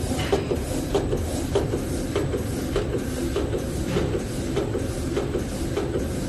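Roll-to-sheet cross-cutting machine running, sheeting silicone-coated sandwich wrapping paper. Its cutter clacks in a steady rhythm, a little under twice a second, over a continuous machine hum.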